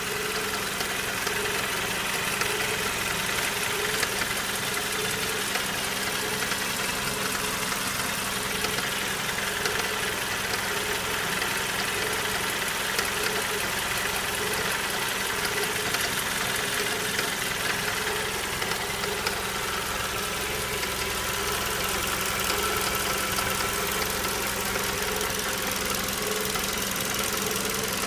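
Suzuki Grand Vitara J24B 2.4-litre four-cylinder engine idling steadily when warm, with the extraneous noise that marks a fault in the warm engine.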